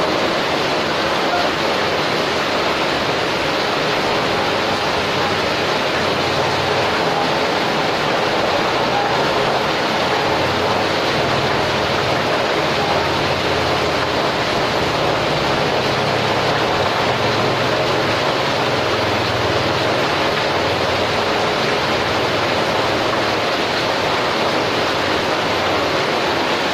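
Steady rushing noise with no break and no change in level.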